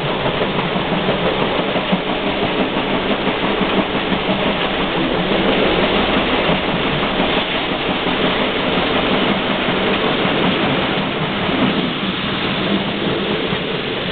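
Steam train hauled by BR 64 518 running, a steady rushing noise with no clear beat of exhaust or wheels.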